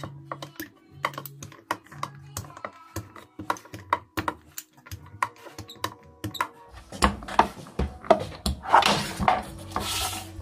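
Quick irregular clicking and tapping of a small wooden dough roller on a wire handle being run back and forth over pizza dough in a metal pan. About seven seconds in, a louder stretch of rubbing and rustling follows.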